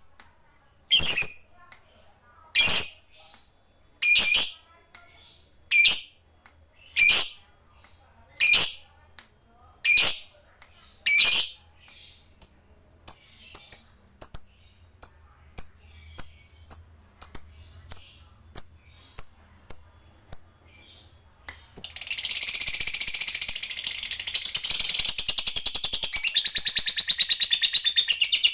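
Lovebird calling: loud, sharp single calls about every second and a half, then quicker, softer chirps about twice a second. About 22 s in it breaks into a long, continuous rapid chattering trill, the 'ngekek' that lovebird keepers prize.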